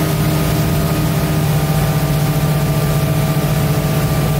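Bayliner 2452 cabin cruiser's engine running steadily while under way, a constant low drone with a steady hiss over it, heard from the helm behind the windshield.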